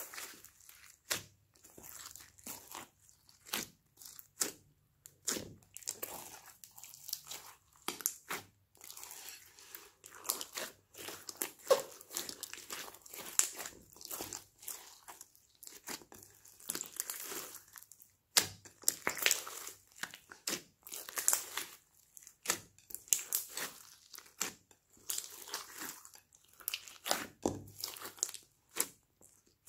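Hands squeezing, stretching and kneading a large lump of glossy slime mixed with foam beads: a continuous run of irregular squishy clicks and crackles.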